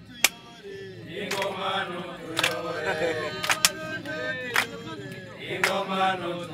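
A group of men singing a chant together, with a sharp hand clap about once a second keeping time.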